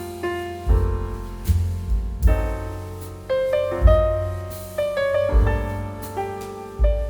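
Piano music with chords over a deep bass note struck about every second and a half.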